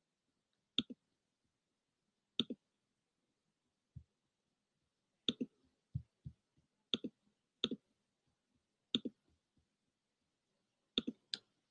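Computer mouse button clicking, about a dozen sharp clicks, many in quick pairs, at irregular intervals of one to two seconds, with near silence in between.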